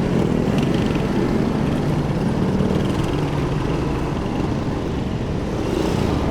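Motorcycle on the move: engine and road noise as a steady low rumble with no breaks.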